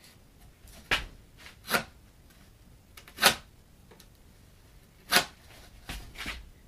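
Wooden shim boards being handled and fitted against a door jamb: about six short, sharp wooden knocks at uneven intervals.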